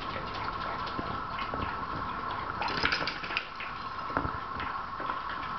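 A dog lapping water from its bowl: quick, irregular wet clicks of the tongue, several a second, over a faint steady hum.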